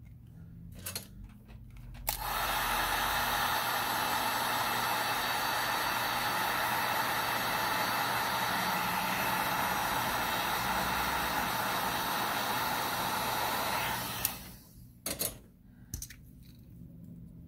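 Hot-air heat gun switched on about two seconds in, blowing steadily for about twelve seconds, then stopping. It is heating a phone's back glass to loosen the fingerprint scanner. A few faint handling clicks come before and after.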